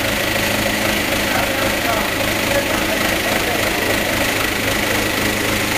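Forklift engine idling steadily with a constant low hum, with a murmur of voices underneath.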